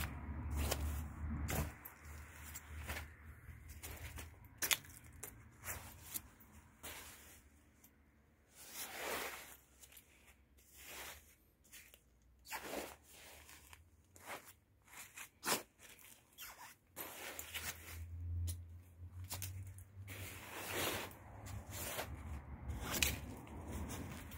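Irregular rustling and scraping as a shiny nylon Benetton puffer jacket is poked, pushed and turned over on dry, gravelly dirt with a stick, in short crinkly swishes and sharp scuffs separated by pauses.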